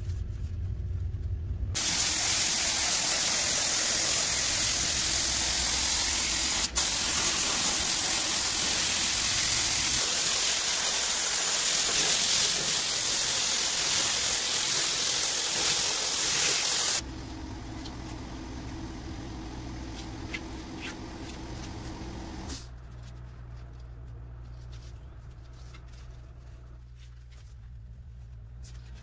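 Spray gun hissing steadily as it sprays wood glue onto the scenery. The hiss starts about two seconds in, breaks off for an instant a few seconds later, and stops abruptly with about twelve seconds left, leaving a low steady hum.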